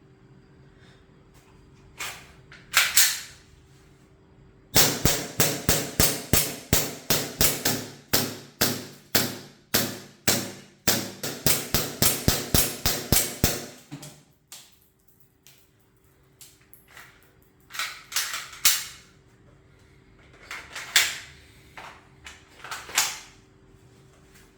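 Airsoft BB gun firing: a couple of single shots, then a quick string of about two to three shots a second lasting some nine seconds, then a few more single shots near the end.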